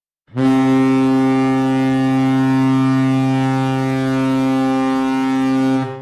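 Ice hockey goal horn sounding one long, steady, low blast that starts a moment in and cuts off near the end.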